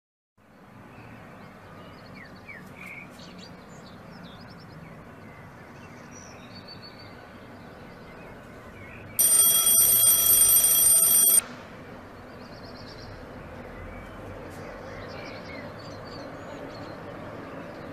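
An electronic alarm ringing loudly for about two seconds, a steady high-pitched tone that starts about nine seconds in and cuts off suddenly. Around it, quiet room tone with a few faint short chirps.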